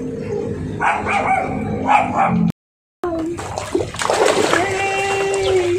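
Small puppy giving short, high whimpering cries while held over the pool water. The sound cuts out briefly about halfway, then water splashes as the puppy is dipped in and paddles.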